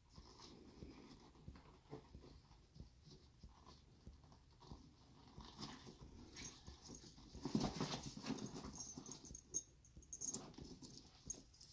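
Quiet rustling and creaking of a bison-leather bag being handled as it is closed, with small clicks as the flap is folded over and the straps are worked through their buckles; the handling is busiest about seven to ten seconds in.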